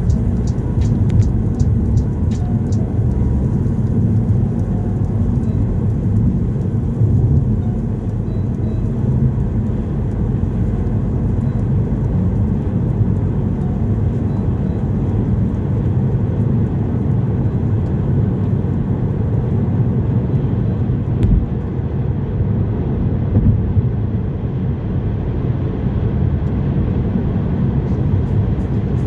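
Steady road and engine rumble inside a car cruising at motorway speed. A regular ticking, the turn indicator, sounds near the start and again near the end.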